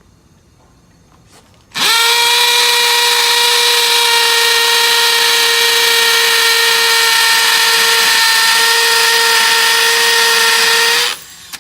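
Electric drill with a starter bit boring into a stucco wall. It spins up quickly about two seconds in, runs at a steady high speed for about nine seconds, and stops near the end.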